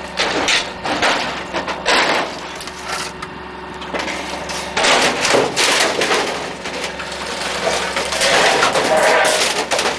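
Garbage truck compactor crushing discarded TVs and other electronics: a dense run of sharp cracks, pops and snaps of breaking plastic and glass, heaviest about five seconds in and again near the end, over a steady low hum.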